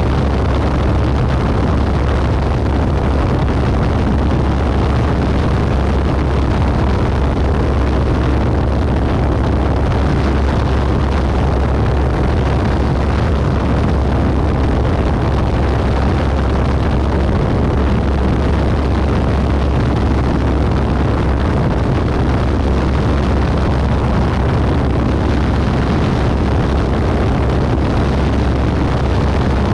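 Single-engine light aircraft's piston engine and propeller running steadily in cruise: a loud, even drone with a dense rushing noise over it.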